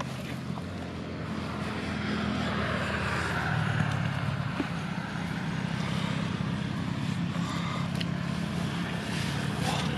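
A motor engine running steadily, with a low hum and a hissing noise that swells slightly about two to four seconds in.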